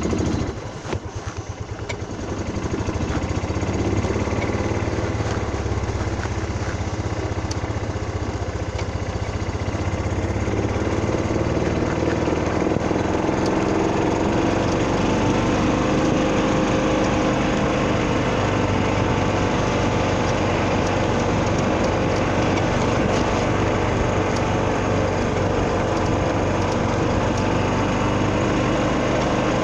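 Small-engine utility vehicle running as it is driven, building up over the first few seconds and then holding a steady pace with slight rises and falls in engine speed.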